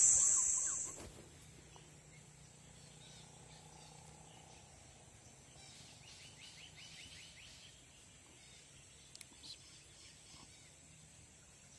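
A high, steady insect drone fades out about a second in. What remains is faint outdoor ambience with a short, quiet bird trill of rapid chirps about six seconds in and two faint ticks near nine seconds.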